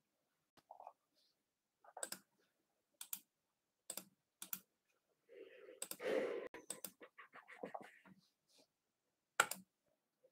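Scattered sharp clicks of a computer keyboard and mouse, a few keystrokes at a time, with a denser, noisier run of clicks around the middle.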